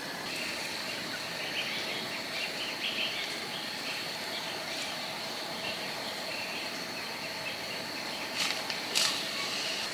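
Insects droning steadily on one high note, with short chirping calls scattered over it and two sharp taps near the end.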